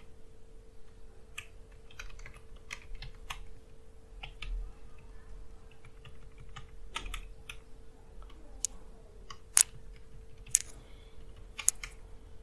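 Keystrokes on a computer keyboard: irregular typing, runs of clicks broken by short pauses, with a few sharper key presses toward the end.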